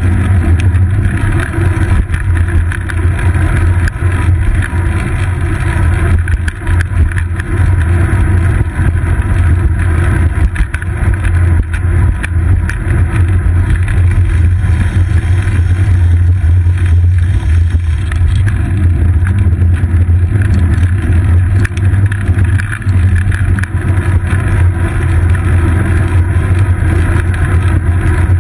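Steady, loud low rumble of wind buffeting and road vibration picked up by a seat-post-mounted GoPro Hero 2 on a moving bicycle.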